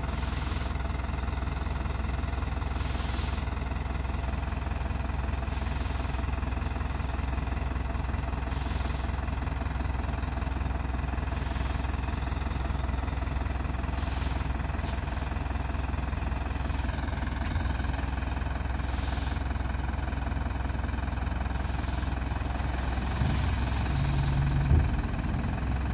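Diesel tractor engine running steadily while the hydraulic tipping trailer raises its bed. Near the end, the load of manure slides off the tipped bed with a louder rush and a thump.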